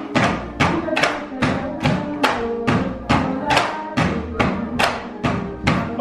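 Bamboo tinikling poles being struck on wooden boards and clapped together: sharp wooden clacks about three a second in a steady repeating beat, with melodic music playing along.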